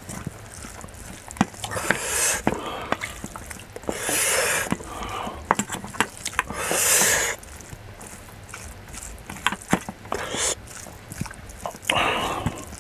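A wooden spoon mixing rice with side dishes in a stainless-steel bowl: repeated clicks and taps of the spoon against the metal. A few loud breaths through the nose close to the microphone stand out over the mixing.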